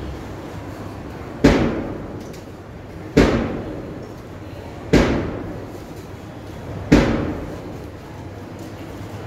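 Four loud thumps about two seconds apart, each dying away over most of a second.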